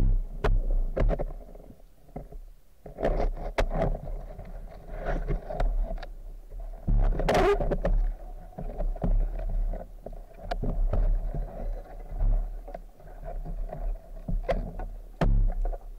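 Underwater sound picked up by a camera mounted on a speargun: irregular clicks and knocks as the gun and the freediver move against rock, over a low rumble of water.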